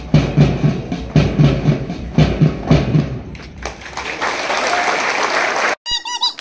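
March music with a steady drumbeat, about three beats a second, giving way about three and a half seconds in to the applause of a crowd. Near the end the sound drops out suddenly and a short warbling tone follows.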